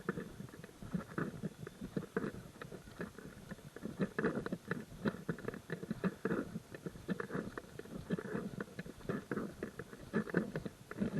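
Hiker's footsteps on a gravel trail: a dense, irregular run of short scuffing strokes that goes on without a break.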